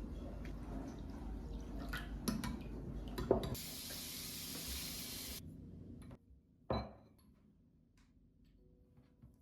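Water running in a kitchen sink with glass and dishes clinking, then a high hiss for about two seconds. A single sharp clink comes near the end.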